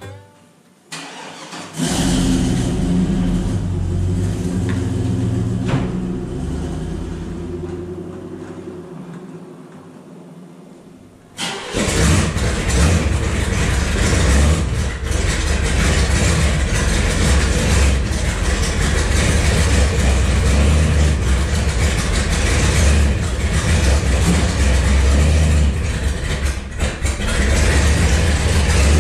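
A car engine starts about two seconds in and runs, slowly growing fainter. About eleven seconds in, a louder engine sound abruptly takes over and runs steadily with a strong low rumble.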